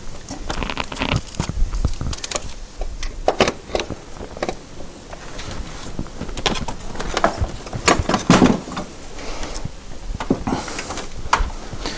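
Irregular clicks, knocks and scrapes of the oil filter housing being worked by hand down onto its locating dowel pins on the engine.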